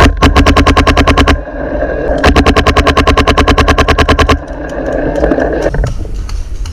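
Planet Eclipse Etha 2 .50 cal paintball marker firing in rapid strings, about ten shots a second: a burst of about a second, then a longer burst of about two seconds starting a second later.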